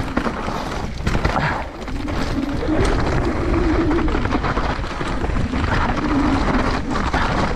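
Mountain bike descending a downhill trail at speed: wind buffeting the microphone with a heavy low rumble, and sharp rattles and knocks as the bike hits bumps. From about two seconds in, a hum runs under it, rising and falling in pitch as the speed changes.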